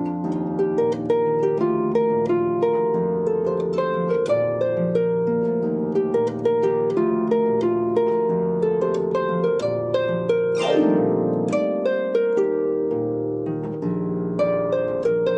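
Harp music of quick plucked notes in a running melody, with a downward sweep about ten and a half seconds in.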